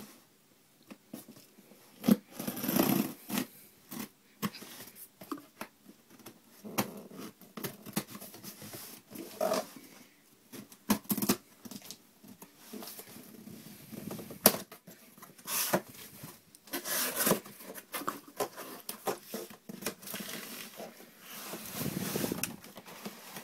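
A taped cardboard shipping box being cut open with a knife and pulled apart: irregular scraping and tearing of packing tape and cardboard, with sharp knocks and rustles as the box is handled and its flaps are opened.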